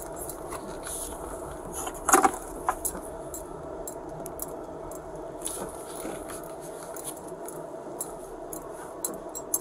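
Cabin noise of a Ford police SUV driving slowly: a steady low running hum with scattered light clicks and rattles, and one louder knock about two seconds in.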